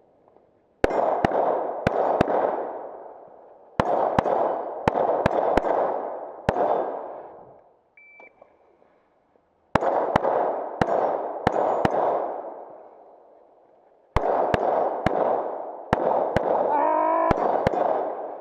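Handgun shots from a 9mm pistol fired in four rapid strings of about four to seven shots each, every crack followed by a ringing echo, with pauses between strings. A short electronic beep sounds in the pause between the second and third strings.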